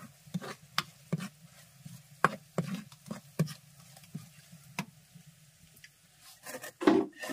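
Coconut-shell ladle scraping and knocking against a clay pot as it stirs a chilli-spice paste roasting over a wood fire: irregular short taps, about one every half second.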